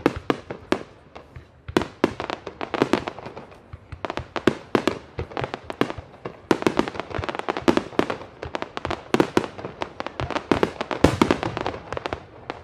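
Professional fireworks display firing a dense barrage of shells and comets: sharp bangs follow one another several times a second without a pause.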